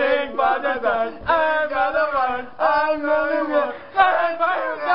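Young men's voices singing loud, drawn-out wordless notes, one after another, with wavering pitch.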